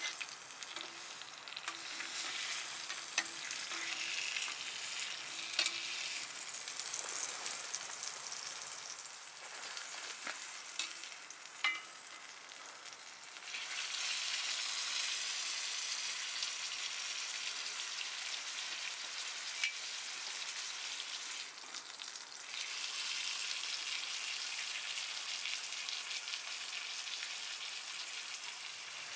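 Food frying in a pan: a steady sizzling hiss with small spitting pops, getting louder about halfway through.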